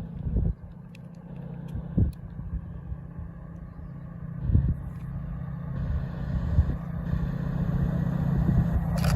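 Class 68 diesel locomotive's Caterpillar V16 engine running with a steady low drone that grows louder as the locomotive approaches. A few short low thumps are heard over it.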